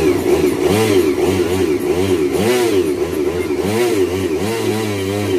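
Benelli TRK 251's single-cylinder engine being revved in repeated throttle blips, the pitch rising and falling again and again.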